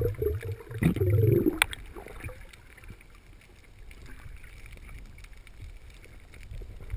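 Underwater water noise heard through a camera housing: a loud rumbling, wavering gurgle of moving water and bubbles for the first second and a half, ending in a sharp click, then a faint steady wash.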